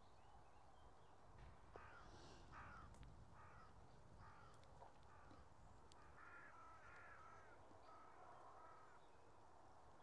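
Faint cawing of a crow: a run of short calls repeated over several seconds, over a low rumble.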